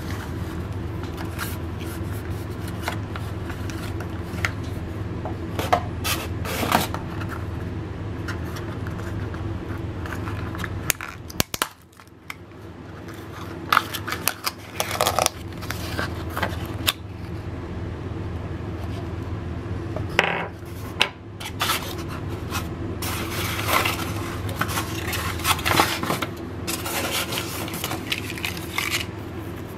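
Packaging handled by hand: plastic bags and wrap crinkling, cardboard and a foam insert scraping, and small hard parts clicking down on a stone countertop, in irregular bursts over a steady low hum.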